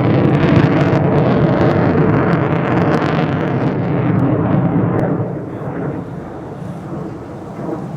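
Loud jet noise from an F-15DJ Eagle's twin turbofan engines as the fighter passes, fading about five seconds in as it draws away.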